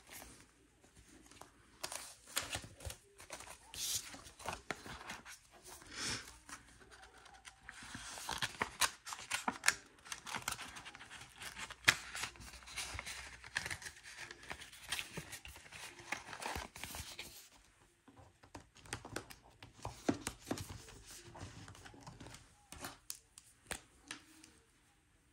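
Paper money and paper envelopes rustling and crinkling as they are handled, a run of many small crisp rustles and clicks that pauses briefly about two-thirds of the way through.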